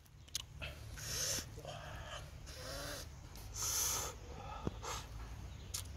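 A man blowing on a hot spoonful of fish and eating it: several breathy puffs, with chewing and short hummed mouth sounds between them.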